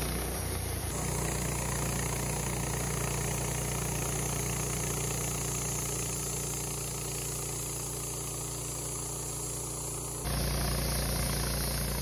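Wood-Mizer LT15 portable bandsaw sawmill running steadily under load as its band blade cuts through a large sugar pine log. The sound changes abruptly about ten seconds in.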